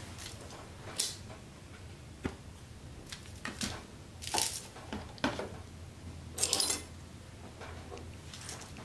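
Hands handling things on a craft table: aluminium foil crinkling around a tea light while a plastic spoon, glass pieces and tools are moved. There are about seven brief rustles and light clinks, the loudest a longer rustle about six and a half seconds in.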